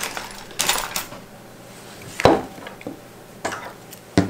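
Small hard objects handled on a workbench: a couple of short rustling scrapes near the start, then sharp knocks about two seconds in and again just before the end.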